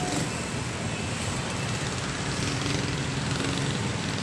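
Steady highway traffic noise: vehicle engines running and passing, an even low drone with no single standout event.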